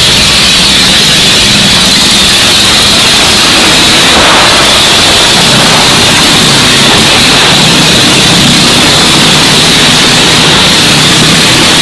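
Motorcycle engine running hard as the bike circles the vertical wooden wall of a wall-of-death drum. The noise is very loud and steady throughout, overloading the recording.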